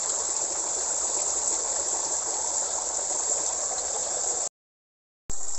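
Steady trickling and splashing of water at a fish pond's surface. It cuts out for under a second near the end, then carries on.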